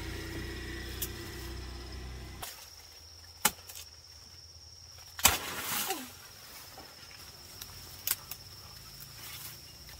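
Outdoor ambience with a steady high insect trill and a low rumble that stops about two and a half seconds in. A few sharp knocks follow; the loudest, about five seconds in, comes with a brief rustle.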